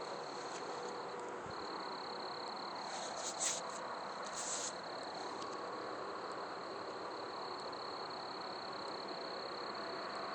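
A steady high insect trill over a continuous broad drone that cannot be placed. Two brief hissy crackles come about three and four and a half seconds in.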